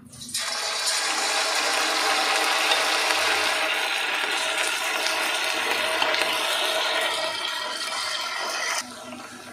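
Batter-coated cauliflower florets deep-frying in hot oil: a loud, steady crackling sizzle that starts as the first pieces go in, about a third of a second in, and drops away sharply near the end.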